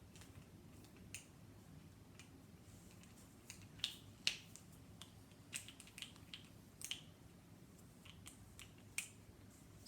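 Scattered light clicks and taps of kitchen utensils and containers being handled, irregular and faint, with the two sharpest about four seconds in.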